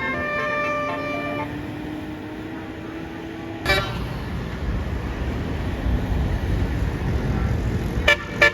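Tour bus's multi-tone basuri (telolet) horn playing a melody of quick stepped notes, over a bus engine whose note rises slowly. A few seconds in the low rumble of engine and road noise jumps suddenly louder, and near the end the horn melody starts again in short choppy notes.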